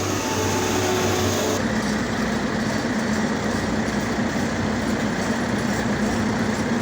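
Heavy road-repair machinery running, a steady loud mechanical rumble; about a second and a half in the hiss drops away and a steady low hum takes over.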